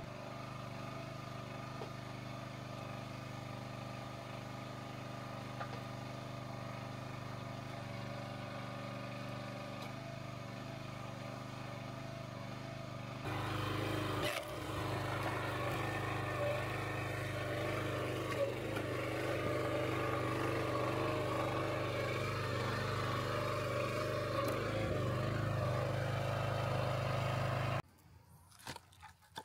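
Small gas engine on a Countyline 30-ton hydraulic log splitter running steadily, running pretty good after a carburetor clean. About halfway through the sound gets louder and busier, with scraping and clatter over the engine. Near the end it stops abruptly.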